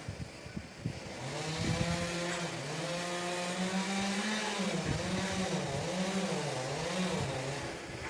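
Chainsaw engine running hard while cutting, its pitch climbing after a brief stutter, then rising and dipping several times as the chain loads, and falling away near the end.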